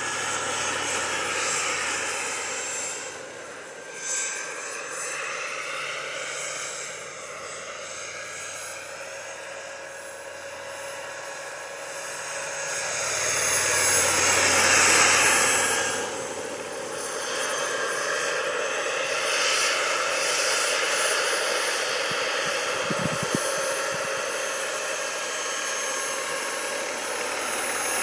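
Radio-controlled scale model of an Aérospatiale Lama helicopter flying and hovering: a continuous engine-and-rotor whine whose pitch rises and falls as it manoeuvres, loudest about halfway through as it hovers close by.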